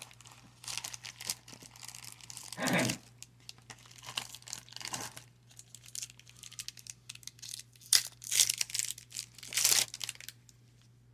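Trading cards and a pack wrapper being handled: irregular crinkling and rustling in short bursts, loudest near the end.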